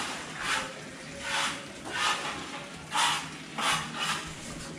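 Trowel scraping wet cement at the foot of a metal railing, in short repeated strokes about two a second.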